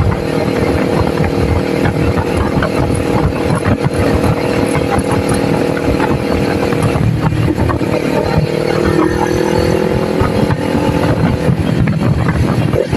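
Kawasaki Ninja 400 parallel-twin engine running steadily while riding. There is a brief dip about seven seconds in, after which the engine note climbs slowly for a few seconds.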